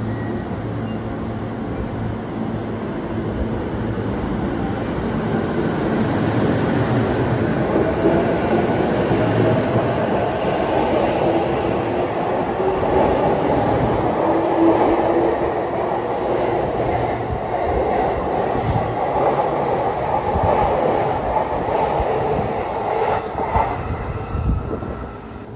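A JR East E233 series electric train pulling away from the platform. Its electric traction motors give a whine that rises slowly in pitch as the train speeds up, over a steady rumble of wheels on rails.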